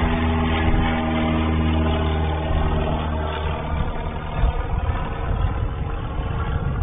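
Steady drone of a piston aircraft engine, even in pitch, that fades after about three seconds into a plain hiss.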